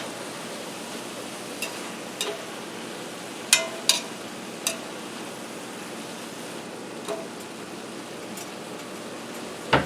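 Summer squash frying in a sauté pan with a steady sizzle, and a few light clinks of a utensil against the pan as it is stirred.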